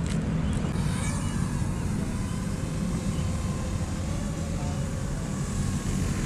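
Ryze Tello mini quadcopter taking off and hovering, its small motors and propellers giving a faint wavering whine over a steady low rumble.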